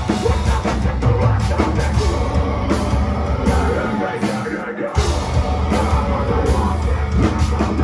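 Live heavy metal band playing: electric guitars, bass guitar and drums with yelled vocals. The bottom end drops away for about a second past the middle, then the full band comes back in.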